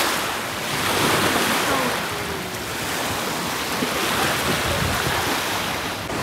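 Ocean surf washing in over the sand in the shallows: a steady rushing noise.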